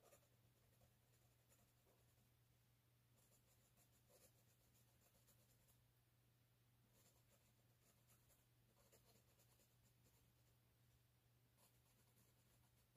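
Very faint scratching of a pencil shaded across paper, in short runs of strokes with pauses between them, over a steady low hum.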